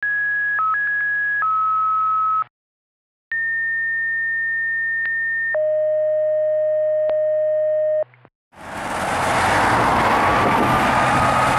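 Fire radio dispatch paging tones, two tone-outs in a row over a low radio hum. The first is a short run of steady beeps switching between two pitches, and the second is a high steady tone for about two seconds followed by a lower one for about two and a half. About eight and a half seconds in, loud street traffic noise starts, with a siren slowly rising in pitch.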